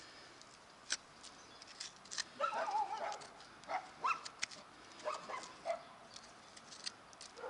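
Faint short animal calls, brief rising cries scattered through, over a few sharp clicks and scrapes of a hoof pick working a mule's shod hoof.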